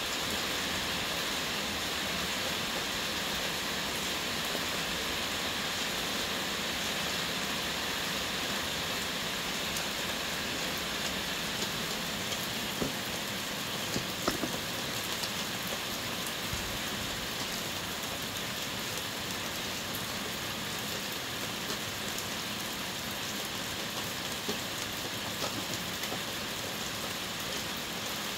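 Heavy rain falling steadily, an even hiss, with a few sharper taps about halfway through.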